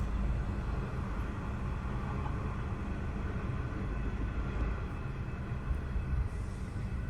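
Steady low rumble of a train at a railway platform, with faint steady tones above it and no sudden events.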